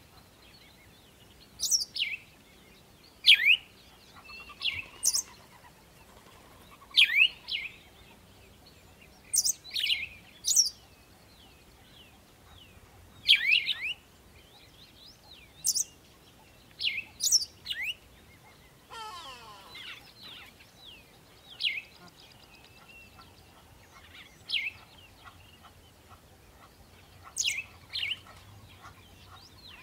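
Birds chirping: short, sharp calls that sweep downward, repeated every second or two, with a longer, lower call about two-thirds of the way through.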